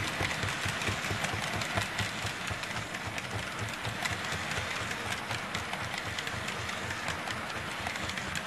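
KATO early-production N-gauge 205 series model train running on its track, its motor and gears giving a steady rattle that the owner suspects comes from the gears, though the train runs smoothly. Many small clicks come through over the running noise.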